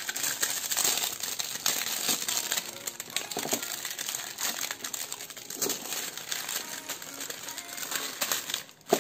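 Thin clear plastic wrap crinkling and crackling as it is peeled off a plastic lamp and bunched up by hand: a continuous run of many small crinkles.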